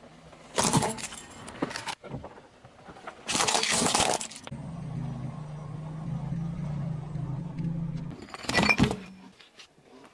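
A car tyre rolling over and crushing small objects. Two bursts of cracking and clinking come in the first half as a small toy forklift is crushed. A low steady engine hum runs between them and the last crush, and a shorter crunch comes near the end as the tyre flattens puff pastries.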